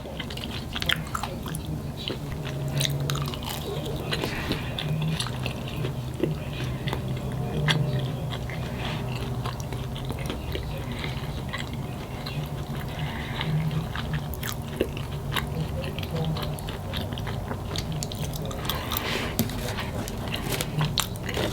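Close-miked chewing and biting of a California burrito (carne asada, fries, cheese, sour cream), with many small wet mouth clicks over a steady low hum.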